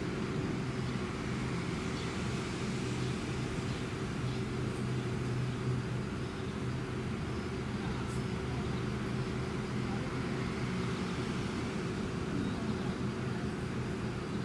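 Steady low machine hum with a constant drone and faint background noise.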